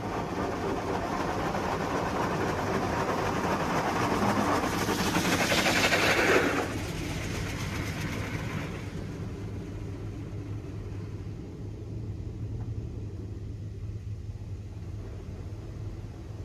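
Petit AccuTrac 360i car wash spraying the car, heard from inside the cabin. The hiss of water and foam on the body and windows builds to its loudest about six seconds in, drops sharply, and fades by about nine seconds, leaving a steady low hum.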